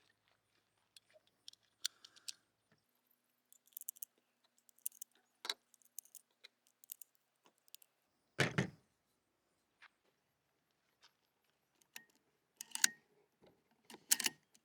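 Scattered light metallic clicks and clinks of small steel pistol parts being handled and fitted together, with one heavier knock about halfway through and a few louder clatters near the end.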